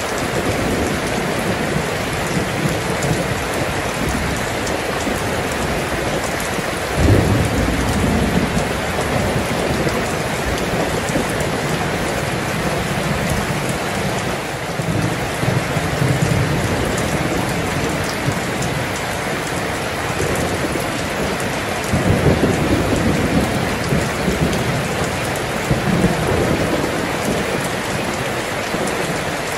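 Steady heavy rainfall with rolls of thunder. A deep rumble breaks in sharply about seven seconds in, and longer rumbles come around the middle and again in the last third.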